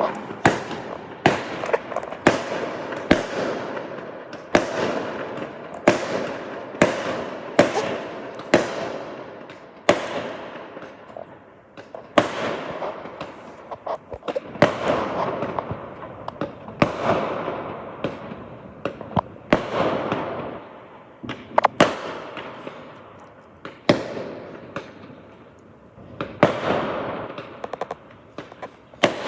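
Fireworks going off in a steady barrage: sharp bangs at irregular intervals, about one a second, each followed by a fading tail.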